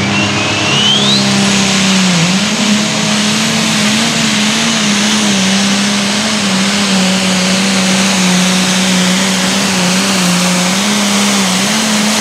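Limited pro stock pulling tractor's turbocharged diesel engine running flat out under load while pulling the sled, its note held at a steady pitch with a brief dip about two seconds in. A high whistle climbs in the first second.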